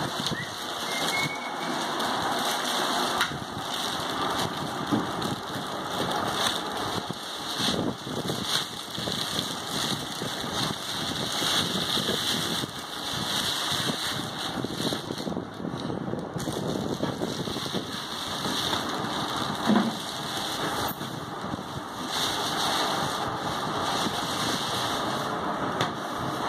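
Steady rushing noise with uneven rustling and handling sounds of plastic wrapping and cardboard as a flat-screen TV is unpacked from its box.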